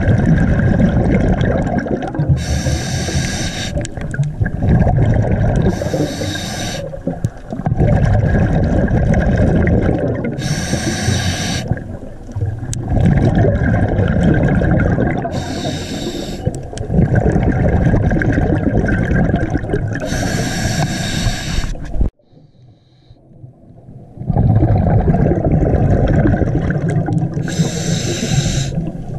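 Scuba diver breathing through a regulator underwater: a sharp hiss of each inhalation, about a second long, every four to five seconds, with the low rumble of exhaled bubbles between them.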